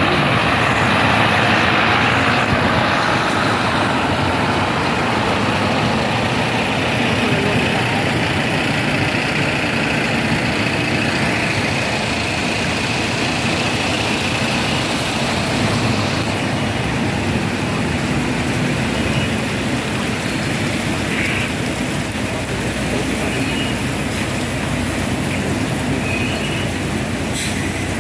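Scania heavy-haulage truck's diesel engine running as it tows a multi-axle low-loader slowly past, with the heavy tyres rolling; a steady, dense rumble that eases off slightly as the rig goes by.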